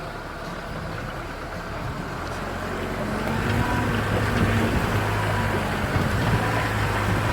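Land Rover engine running as the vehicle drives through a shallow river crossing, growing louder about three seconds in.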